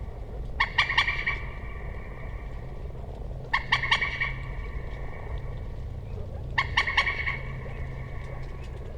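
Common moorhen calling: three short calls, each a quick run of three or four sharp notes, about three seconds apart.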